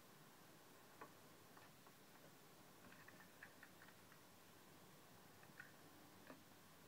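Near silence with a few faint, light clicks and taps from a small toy car being handled by hand: one about a second in, a quick cluster around three seconds, and two more near the end.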